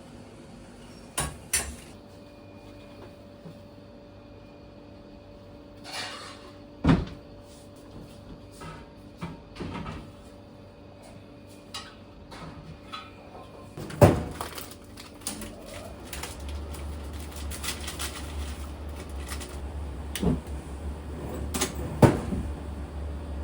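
Kitchen clatter: scattered knocks and clinks of pots, dishes and cupboard doors being handled. A steady low hum comes in about two-thirds of the way through.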